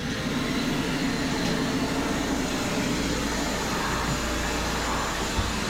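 Hart 6-gallon stainless steel wet/dry shop vac running steadily, its motor's loud, even whirr.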